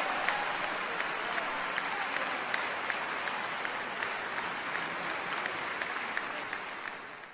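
Concert audience applauding steadily, a dense patter of many hands clapping that fades out near the end.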